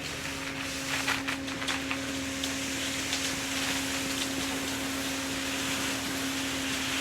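A machine running with a steady, constant hum over a noisy background, with a few short knocks or scrapes in the first couple of seconds.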